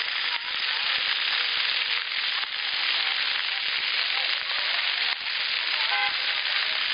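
Ground-level splash-pad fountain jets spraying and falling onto wet paving, making a steady hiss of water. A brief high-pitched tone comes through about six seconds in.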